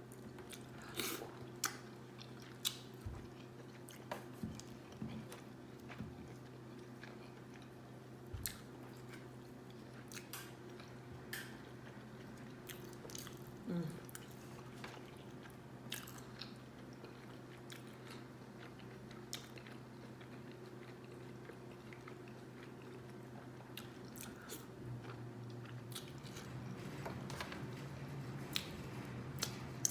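A person eating close to the microphone: chewing and lip-smacking, with scattered short clicks and smacks, over a low steady hum.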